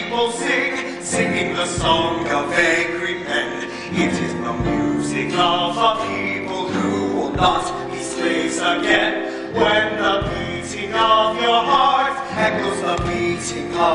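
A musical-theatre chorus sings with an orchestra, a low drum hit falling about every three seconds.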